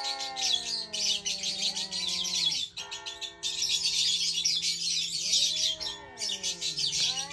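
A dense chorus of small birds chirping rapidly and without pause. Lower, long-held tones glide up and down underneath. The chirping breaks off briefly about three seconds in.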